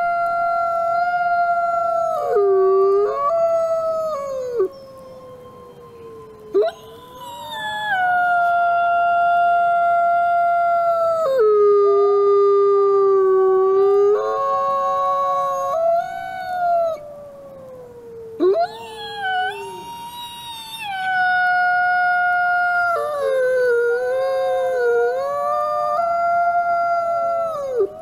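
Gray wolf howling: long held howls that slide and drop suddenly in pitch, with short pauses between them. At times two howls at different pitches overlap.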